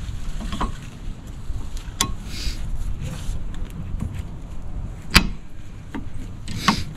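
Gloved hands working new brake pads and the caliper bracket on a truck's front disc brake: a few sharp metallic clicks and knocks, the loudest about five seconds in, with brief rustles between them.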